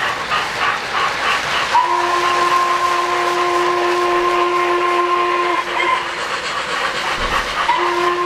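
O-gauge model steam locomotive's whistle blowing one long steady chord-like blast of about four seconds, with another starting near the end. Before it, rapid even clicking of the model train's wheels running over the track, about four to five clicks a second.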